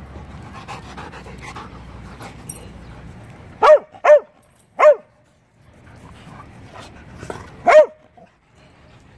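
A dog barking: three sharp barks in quick succession about halfway through, then a single bark near the end, over a low background rumble.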